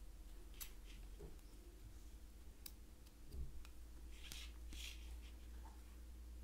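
Faint hand-work noises: a few soft, scattered clicks and short rustles from handling crocheted yarn and small tools, over a steady low hum.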